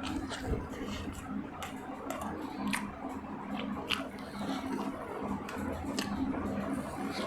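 A person chewing and eating with wet, squishy mouth sounds and scattered sharp smacks and clicks, over a steady low hum.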